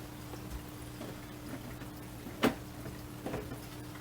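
A sharp click about two and a half seconds in, with a few fainter knocks, from handling the plastic and metal parts of a small-form-factor desktop case as it is put back together. A low steady hum runs underneath.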